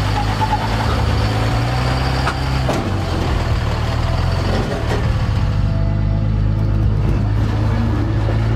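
Full-size Dodge 2500 pickup's engine running at low revs as the truck crawls up over rocks, its pitch shifting slightly a couple of times. Two sharp knocks come about three and five seconds in.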